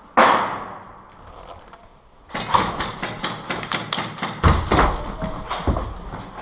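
A single loud bang near the start that rings out in the bare concrete room. After about two seconds comes a dense run of crunching footsteps and scuffs on broken concrete rubble, with a couple of heavier thuds.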